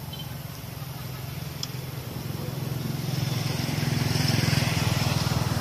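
A motor vehicle's engine running with a low, fast-pulsing hum, growing louder about halfway through and peaking near the end as the vehicle passes close by.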